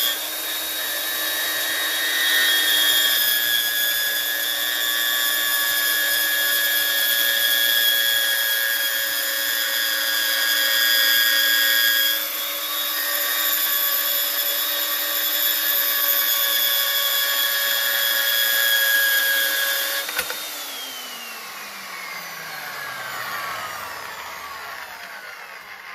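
Klutch horizontal metal-cutting bandsaw running steadily through a cut with a high-pitched whine. About twenty seconds in there is a sharp clack as the cut finishes, and the motor switches off, its pitch falling away as the blade spins down.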